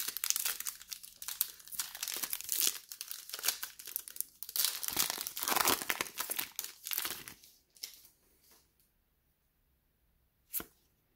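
Foil trading-card pack wrapper being torn open and crinkled by hand as the cards are slid out. The crinkling stops about two-thirds of the way through, and a single short tap follows near the end.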